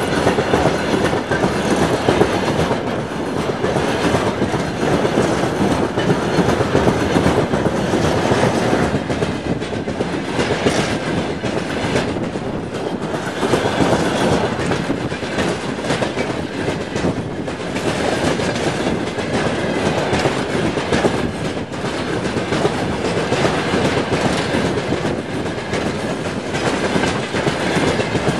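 A long train of railway tank wagons rolling past close by: a steady, loud rumble with a rapid clatter of wheels on the rails.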